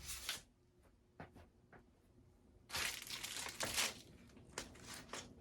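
Rustling, crinkling noise close to the microphone: a short burst at the start and a louder one lasting about a second, about three seconds in. Under it, a Casablanca Four Seasons III ceiling fan runs on medium speed with a faint steady hum.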